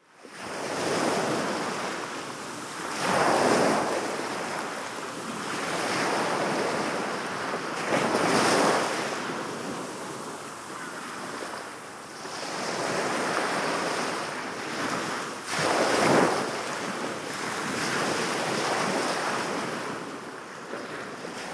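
Sea waves washing in on a shore, a steady surf hiss that swells and falls back every few seconds.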